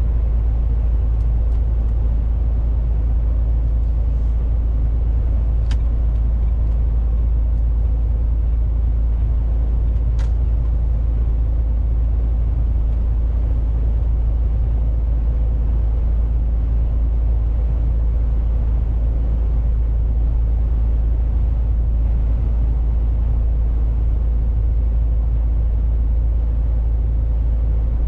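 Steady low drone inside the cab of a MAN TGX 470 truck under way: its straight-six diesel engine with tyre and road noise. Two short clicks come through it.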